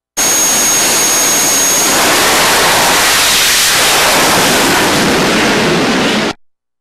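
Jet dragster's jet engine at full power as the car runs down the drag strip: a loud, even rush of noise that cuts off suddenly near the end.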